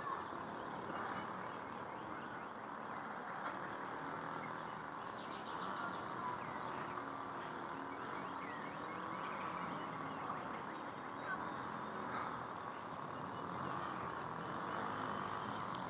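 Steady, fairly quiet background noise with a few faint, short bird chirps scattered through it.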